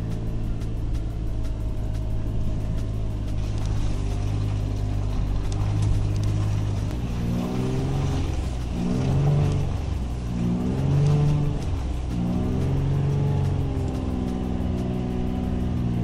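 Four-wheel-drive SUV's engine pulling at low speed over a badly broken road with every drive mode engaged. It runs steadily at first; from about halfway through it revs up and down several times as the car crawls, then settles back to a steady pull near the end.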